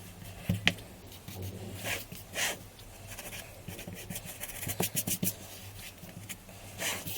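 Hand work on a wooden cutting board: short scraping and rubbing strokes with a few sharp taps and clicks in between.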